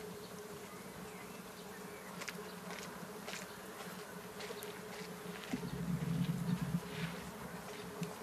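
A steady low buzzing hum that swells louder for about a second, roughly two-thirds of the way through, with faint scattered ticks as hands work a wooden crochet hook and yarn.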